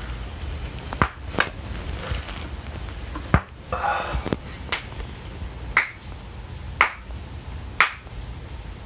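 Spinal joints cracking: a string of sharp pops and crunches, roughly one a second.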